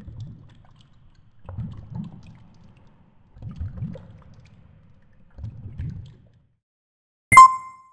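Muffled low rush of water against a GoPro's underwater housing on a deep-water fishing rig, coming in surges about every two seconds. Near the end, after a second of quiet, a sudden sharp ding with a short ringing tone.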